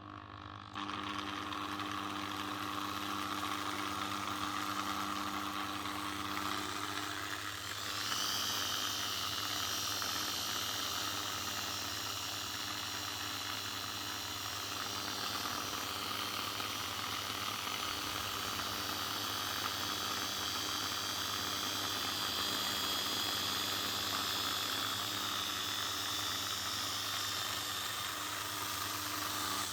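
M-2100 C electric drilling machine running with a steady motor hum, starting about a second in. About eight seconds in it gets a little louder and a high whine joins, then holds steady.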